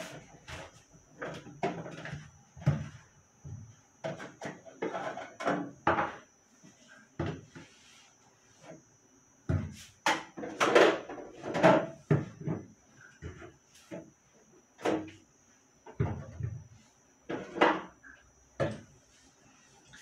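Plastic containers and bottles being lifted out of a refrigerator and set down on a hard countertop: irregular knocks, clacks and rattles, busiest and loudest about halfway through.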